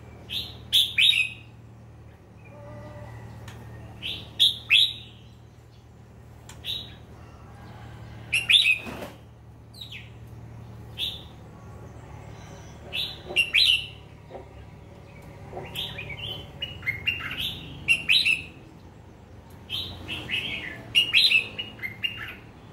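Caged bulbuls (merbah lekir) calling. Short bursts of bright chirped notes come every couple of seconds, some bursts two or three quick notes together, over a faint low hum.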